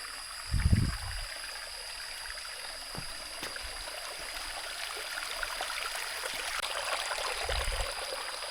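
Stream water running and trickling over rocks, a steady rushing hiss. Two brief low rumbles come through, about half a second in and near the end.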